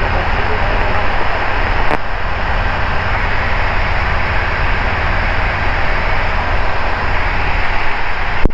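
Ikarus C42B microlight in cruise flight: a steady drone of its engine and propeller mixed with the rush of air.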